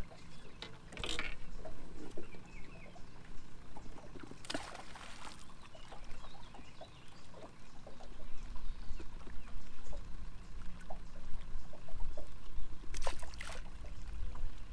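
Small fishing boat sitting on the water: a low rumble with light water sounds, broken by a few brief knocks and rustles from gear being handled aboard. The rumble grows louder about halfway through.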